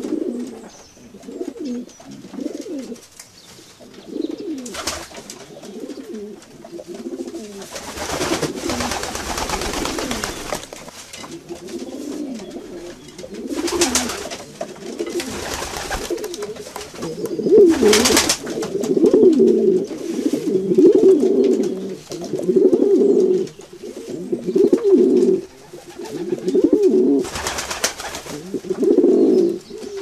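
A flock of feral pigeons cooing continuously, many birds overlapping and loudest in the second half, with several short rushes of flapping wings.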